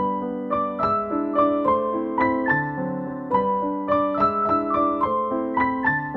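Background piano music: a gentle melody of single notes, about three a second, rising and falling over held lower notes.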